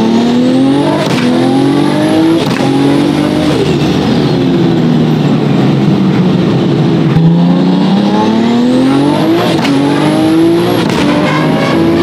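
Nissan Skyline R34 GT-R's RB26DETT twin-turbo straight-six accelerating hard through the gears, heard from inside the cabin. The engine note climbs in pitch with a short break at each upshift. It eases off about a third of the way in, then climbs again through two more upshifts.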